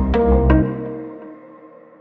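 Background music with a deep bass and struck notes that stops about half a second in, the last notes ringing out and fading.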